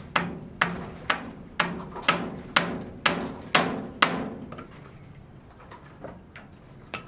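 Hammer blows at a steady pace of about two a second, each with a short ringing tail. The blows stop about four seconds in, leaving a few faint knocks.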